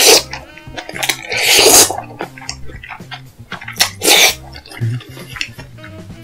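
Loud slurping of jjajangmyeon noodles, three times: a short slurp at the start, a longer one a little over a second in, and another about four seconds in. Soft background music plays underneath.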